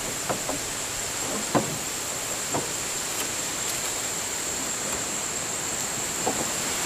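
Paracord being wrapped around a bundle of three wooden poles: faint rubbing and a few light knocks of the poles being handled, the loudest about one and a half seconds in. Underneath runs a steady hiss with a thin, high, steady tone.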